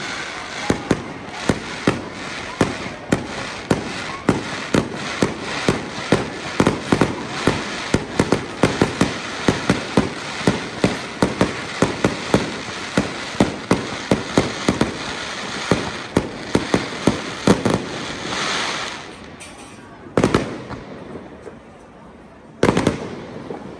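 Fireworks display: aerial shells going off in a rapid series of sharp bangs, several a second. Near the end the bangs stop for a hissing swell and a quieter stretch, broken by two more loud bursts.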